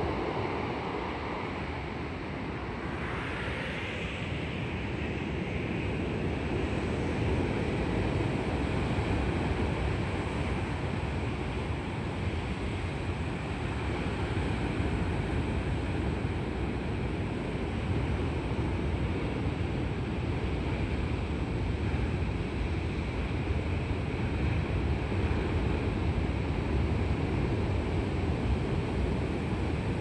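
Heavy typhoon swell: large waves breaking and crashing in a continuous low rumble of surf.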